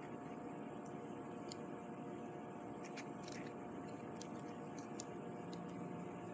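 Small twig campfire crackling faintly: sparse soft ticks and pops over a steady background hiss.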